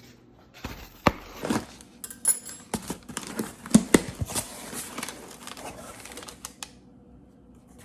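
Packaging being handled and unwrapped: plastic crinkling and tearing, with sharp clicks and knocks, starting about half a second in and stopping near the end.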